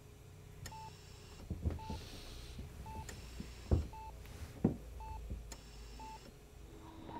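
Patient heart monitor beeping steadily, one short tone about every second, with a few soft low thumps.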